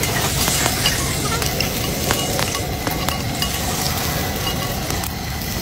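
Food frying in a metal pot over a wood fire: a steady sizzle as a ladle stirs it, with scattered sharp clicks in the first few seconds.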